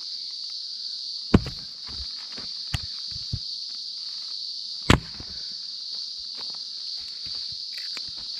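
Steady high-pitched insect drone from the bush, broken by a few sharp wooden knocks, two of them loud, about a second and a half and five seconds in.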